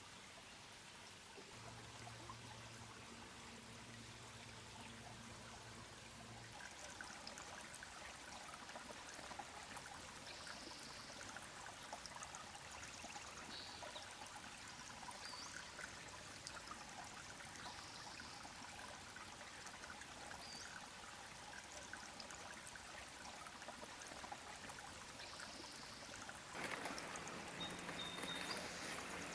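Faint running creek water, a steady trickling hiss that gets louder near the end. A low steady hum sounds for a few seconds near the start, and a few short high chirps come and go.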